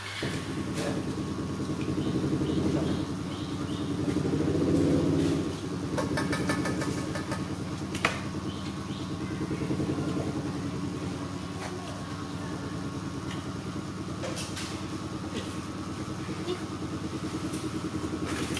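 An engine starts running abruptly and keeps going steadily, swelling louder twice within the first six seconds, with a sharp click about eight seconds in.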